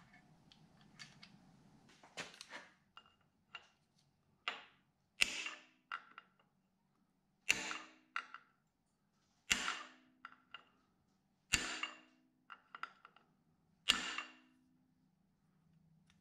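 Hammer blows on a steel punch, driving the timing-case dowel pin of a 12-valve Cummins back into the block after it had worked out about an eighth of an inch. Sharp metallic strikes that ring briefly, the five heaviest about two seconds apart, with lighter taps between.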